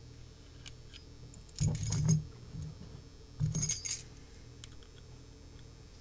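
Metal keys jingling and clinking as they are handled, in two short bursts about a second and a half apart.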